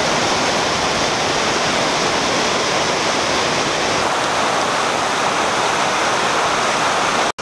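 River water rushing over a small concrete weir and through rocky shallows: a steady rush that cuts off suddenly near the end.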